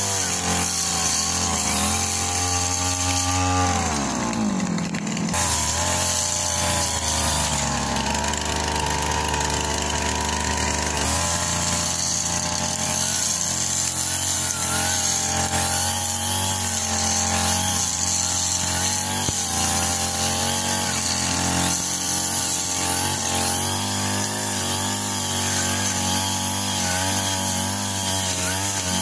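Backpack brush cutter's engine running at high revs while trimming grass. Its pitch drops sharply about four seconds in and then climbs back to full speed.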